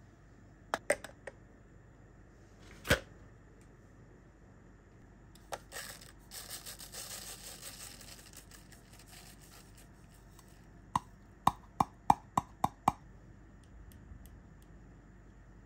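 A few hard clicks as a KONO coffee dripper is set down onto a glass server of ice. Ground coffee then pours into the paper filter with a soft hiss for a few seconds. After that come six quick, ringing taps on the dripper, settling the grounds into a level bed.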